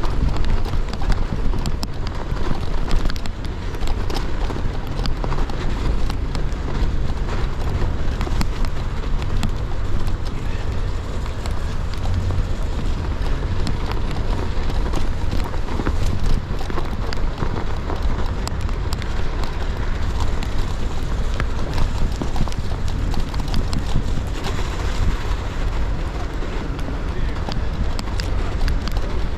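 Rose Backroad AL gravel bike's tyres rolling slowly over snow and ice, a dense, steady crackling crunch over a low rumble of wind on the action camera's microphone.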